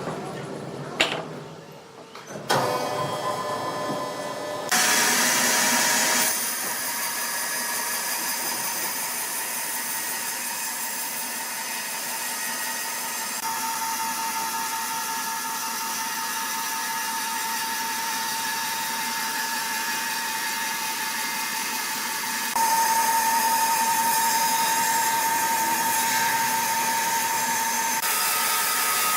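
Sawmill saw machinery running with a steady high-pitched whine and hiss, its pitch and level changing abruptly several times.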